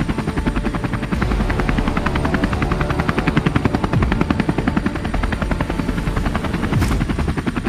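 Helicopter in flight, its rotor blades chopping in a rapid, steady beat over the engine's running noise.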